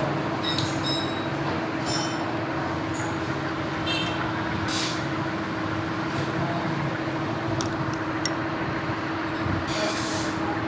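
A steady mechanical hum with background noise, broken by a few light, ringing metallic clinks.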